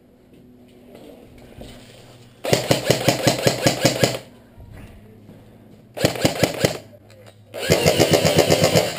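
Stock KWA G36C airsoft electric rifle firing full-auto on a 9.6 V battery, a rapid, even rattle of shots in three bursts: one of about a second and a half, a short one just past the middle, and a longer one from about three-quarters in.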